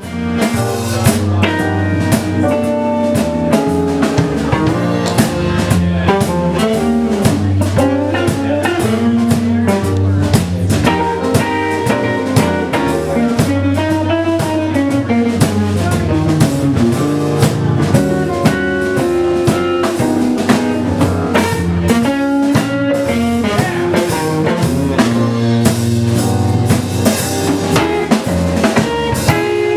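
A band playing a blues-flavoured song with drum kit, rimshots and guitar.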